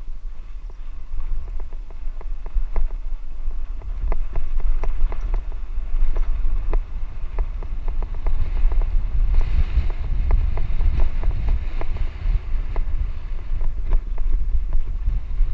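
Wind buffeting the microphone of a helmet-mounted camera on a bicycle riding a dirt track, a loud low rumble. Frequent irregular clicks and knocks run through it as the bike jolts over the rough ground.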